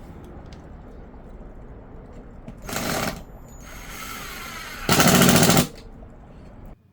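Power drill running a countersink drill bit in two short bursts, each under a second, with a fast rattling pulse. The second burst is the louder one.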